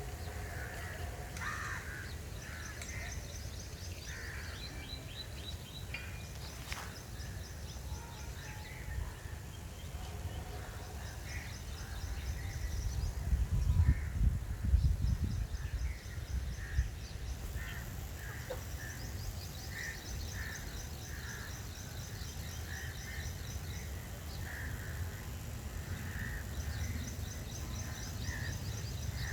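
Birds calling repeatedly, with short calls and fast high trills, over a steady low rumble that swells for a few seconds about halfway through.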